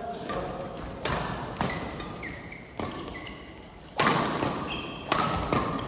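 Sharp hits of a doubles rally on an indoor court, about seven strikes at uneven intervals, echoing in the hall, with shoes squeaking on the court floor between them.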